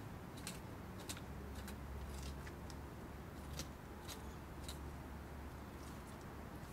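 A knife working along a beaver's spine to free the back strap: scattered light snicks and clicks of the blade and meat being handled, over a low steady hum.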